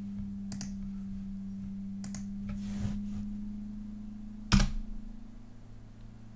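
Soft clicks from a computer keyboard and mouse as a command is entered, with one sharp click about four and a half seconds in, over a steady low hum.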